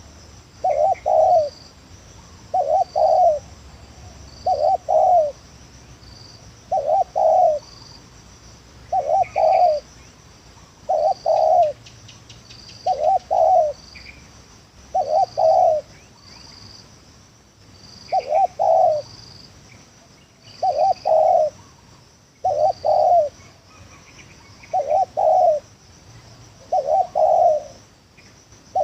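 Spotted dove (tekukur) cooing: a short two-part coo repeated about every two seconds.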